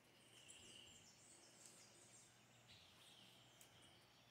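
Near silence at an outdoor campsite, with faint birds chirping: a run of short, high falling notes in the first two seconds and a softer trill twice.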